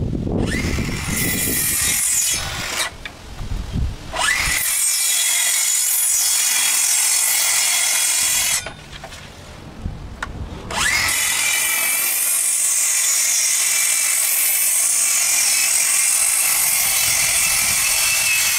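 Makita plunge track saw running along its guide rail, cutting through deck boards to trim their ends. It runs in three long stretches with two short pauses, a steady motor whine under the cutting noise.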